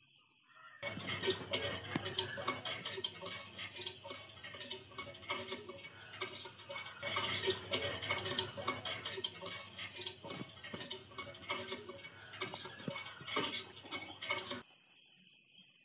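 Miniature toy hand pump worked by hand, its handle giving a rapid, irregular clicking and rattling. The sound starts about a second in and stops abruptly near the end.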